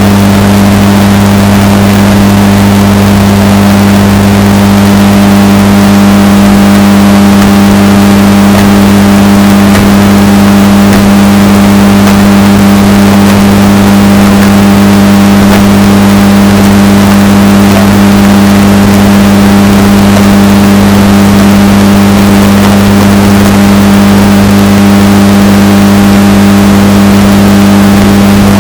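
Washing machine running with a steady motor hum, bass-boosted so hard that it is very loud and distorted; the drone holds unchanged throughout.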